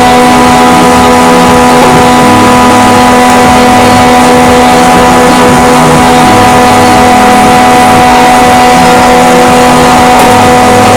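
A power woodworking machine running loud and steady, its motor holding an even hum throughout, as oak 4x4s are squared up.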